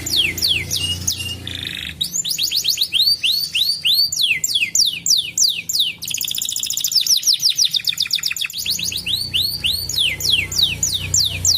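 Domestic canary singing: phrases of rapidly repeated, sweeping whistled notes, switching to a new phrase every second or two, with a very fast rolling trill in the middle.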